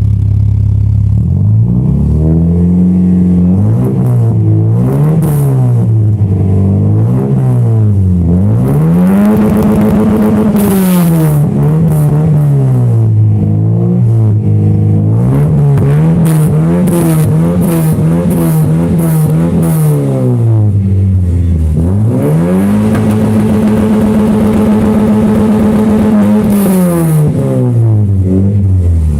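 Volkswagen Jetta's engine and exhaust revved repeatedly from idle: a string of quick blips, then longer holds at higher revs, one about ten seconds in and another lasting several seconds about two-thirds through.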